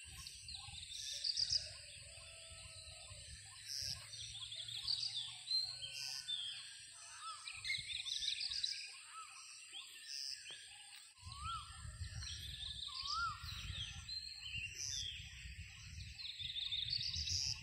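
Wild birds chirping and calling, many short high chirps with a few rising-and-falling whistled notes, over a steady high-pitched hum. Bouts of low rumble come and go, loudest over the last few seconds.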